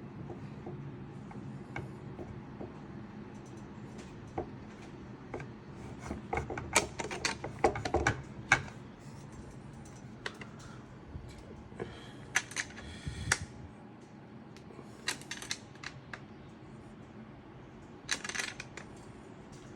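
Irregular small metallic clicks and clinks of a wrench working a nut and machine screw as a brass threaded insert is turned into the crossbow body, in clusters with pauses between, over a low steady background hum.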